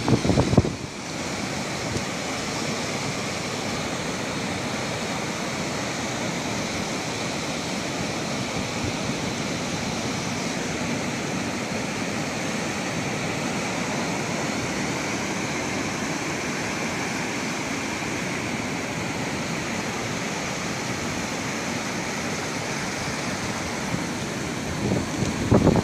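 Ocean surf breaking and washing over the sand, a steady, even rush of water. A gust of wind buffets the microphone in the first second.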